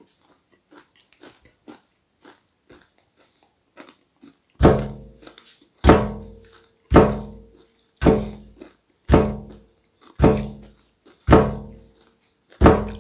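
Faint crunching of fried catfish being chewed, then seven heavy booming thumps at a steady beat about a second apart, each with a low ringing tail.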